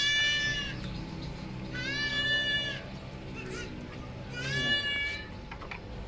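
Goat bleating: three long, high calls about a second apart, each one steady and dropping slightly at the end, over a low steady hum.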